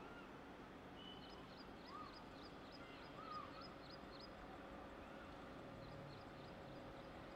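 Faint outdoor ambience with a bird chirping quickly, a few high chirps a second, and two short calls between them.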